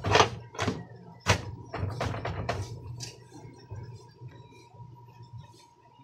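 A run of sharp knocks and thunks, about eight in the first three seconds, then fainter clicks, as a stuck washing-machine gearbox is rocked and knocked to work it free of the tub.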